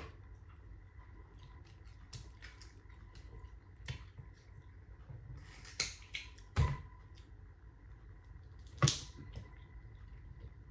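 Scattered sharp clicks and taps of small hard objects, four of them louder, with faint crackling in between.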